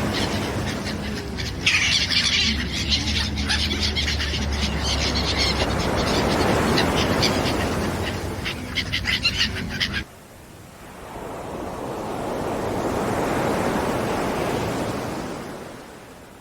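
A flock of birds calling and squawking rapidly over a low steady hum. About two-thirds of the way through this cuts off abruptly, and one ocean wave washes in, swells and recedes.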